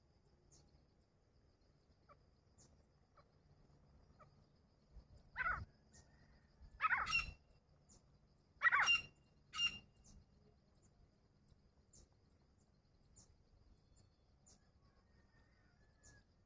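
Grey francolins calling: four loud calls about five to ten seconds in, the middle two longer than the first and last.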